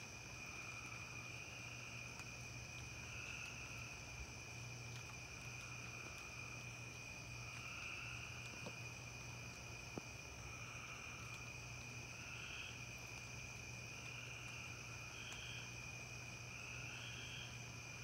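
Faint night chorus of crickets trilling steadily at a high pitch. Another caller repeats short calls every second or two. A low steady hum runs underneath.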